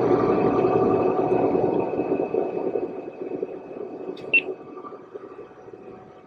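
Sailing yacht's engine running under way, with water rushing along the hull; the sound grows steadily fainter from about two seconds in. A brief high chirp sounds a little after four seconds in.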